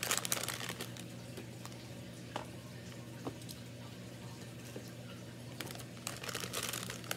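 Plastic candy packaging crinkling in short bursts as pieces are taken from the bag and put into a basket: a burst near the start, a quieter stretch with a few small clicks, then more crinkling near the end, over a low steady hum.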